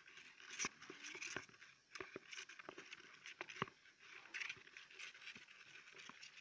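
Hamsters crawling about in a plastic tub: faint, irregular scratching and clicking of small claws on plastic.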